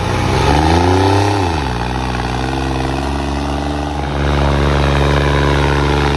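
Modified New Holland 3630 tractor's diesel engine pulling a disc harrow through ploughed ground. It revs up in the first second, drops back, then runs steadily under load, getting louder about four seconds in.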